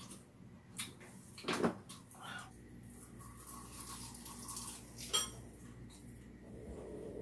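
Tableware clinking: a few sharp clinks of utensils against dishes, the loudest about one and a half seconds in and another about five seconds in.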